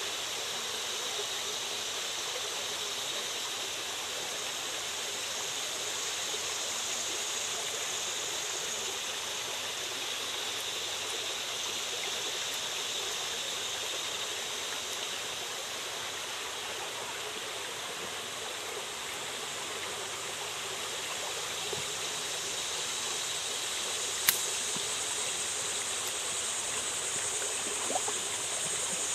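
Shallow creek water running and splashing over rocks, a steady rushing hiss. A single sharp click stands out about three quarters of the way through.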